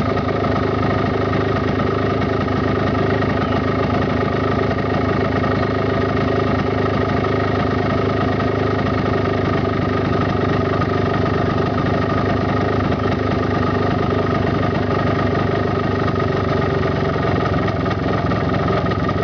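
Warm carburetted engine idling at a steady speed, its idle freshly set after the air screw was tuned for the best fuel-air mixture.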